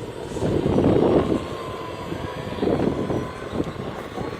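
Electric motors of radio-controlled construction models running with a steady, slightly wavering whine, under louder rough surges about a second in and again around three seconds.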